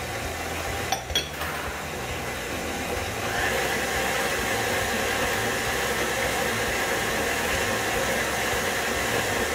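Stand mixer motor running steadily as its paddle beats the wet cookie-dough ingredients (sugars, coconut oil, almond milk) in a metal bowl; its whine steps up slightly about three seconds in. A couple of glass clinks about a second in as a small glass bowl is set down on the counter.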